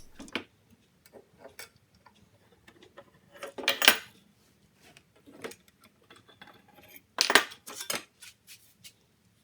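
Sheet metal and hand tools clinking and clanking as they are handled, with two louder metal clanks about four and seven seconds in.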